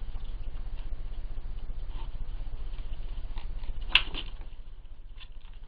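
Two badgers feeding from a plastic bowl: scattered small crunching and clicking sounds, with one sharper knock about four seconds in, over a steady low hum.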